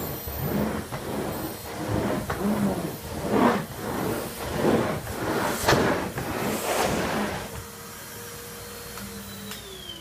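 Numatic Henry HVR200-12 620 W vacuum cleaner running on its high setting while its suction floor tool is pushed back and forth over carpet, the sound surging with each stroke about once a second. About seven and a half seconds in the strokes stop and only the motor's steady hum is left, and near the end the motor winds down with a falling whine as it is switched off.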